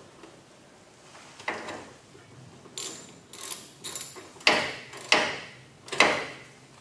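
Sharp metallic clicks and knocks, about seven spaced through several seconds with the three loudest in the second half: a ratchet and steel mounting hardware being worked while the wall-mount garage door opener is tightened onto its mount.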